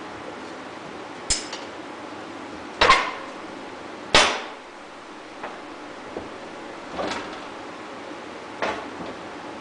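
A screwdriver levering in the seam of a 1995 Yamaha Big Bear 350 engine's crankcase to split the case halves, with five sharp metal clicks and knocks a second or two apart, the loudest about three and four seconds in.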